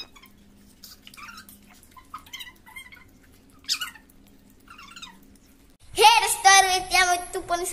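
Several faint, short high-pitched calls over a low steady hum. About six seconds in, a boy's voice breaks in loudly, singing with a wavering pitch.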